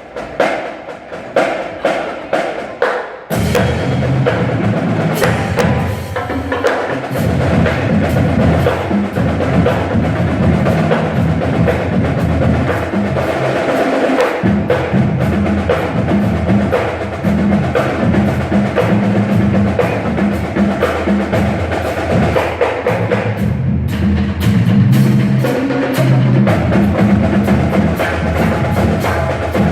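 Marching band: sharp stick-like clicks for about the first three seconds, then the full band playing with drums keeping a steady beat.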